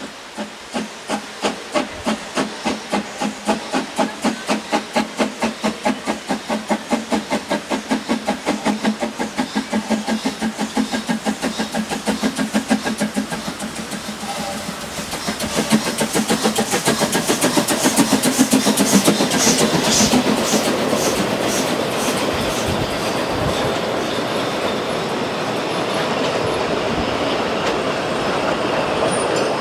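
Mansfelder Bergwerksbahn's Lok 20, a narrow-gauge steam locomotive, pulling away with regular chuffing exhaust beats that quicken as it gathers speed, then passing close by. Its coaches follow, rolling past with a steady clatter.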